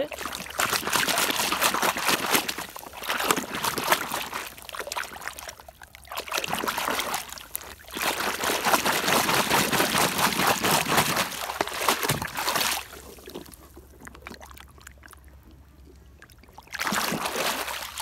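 Water splashing and sloshing in bursts as a muddy plastic toy car is swished and scrubbed by hand in pond water, with a quieter pause of a few seconds near the end before the splashing starts again.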